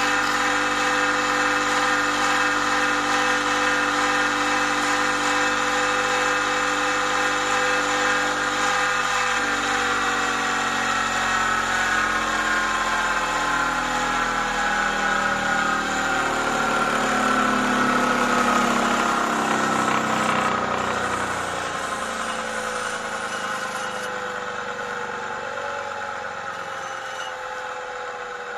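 Electric sharpening grinder's motor running at a steady hum, then slowly winding down in pitch and fading as it coasts after being switched off.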